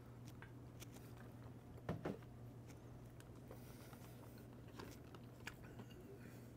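Quiet eating: faint mouth and food-handling clicks over a steady low hum, with a louder double knock about two seconds in.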